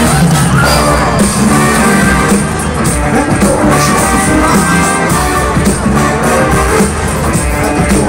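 Loud live pop-rock concert music from a stadium PA: a full band with heavy bass and guitar.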